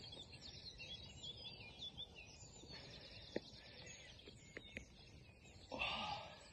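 Faint birdsong: many small birds chirping and trilling over a low outdoor hiss, with a few sharp clicks in the middle and a short louder sound near the end.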